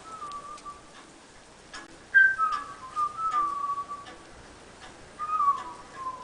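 Three whistled phrases, each a clear tone sliding downward in pitch; the second is the longest and loudest. Faint scattered clicks sound between them.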